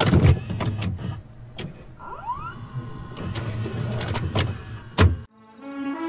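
Videocassette recorder tape-mechanism sound effect: repeated clicks and clunks over a motor hum, with a short rising whine about two seconds in. A little after five seconds the sound cuts out abruptly, and a steady held tone starts just before the end.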